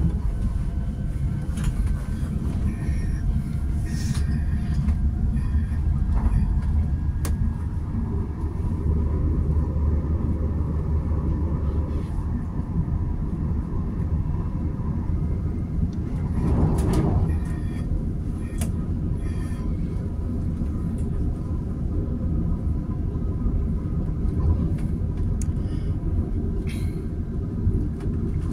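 Running noise inside an Alstom Coradia Lirex X61 electric multiple unit travelling at speed: a steady low rumble of wheels on rail with a faint steady whine, scattered clicks, and a brief swell in the rumble a little past halfway.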